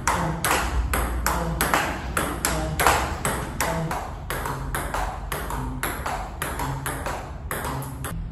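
Table tennis backhand rally: the celluloid-type ball clicking off the rackets and the table in a steady, even rhythm of about three hits a second.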